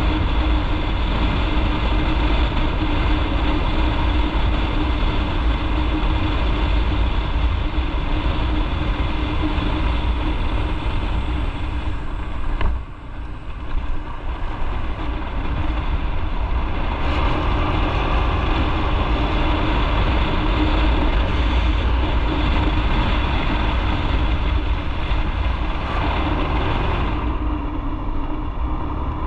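Motorcycle riding along, its engine running steadily under a loud rush of wind on the microphone. The sound dips sharply for a moment about 13 seconds in, then picks up again.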